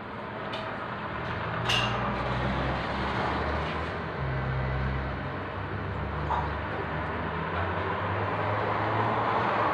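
Steady rushing noise with a low, wavering hum, and a single sharp click a little under two seconds in.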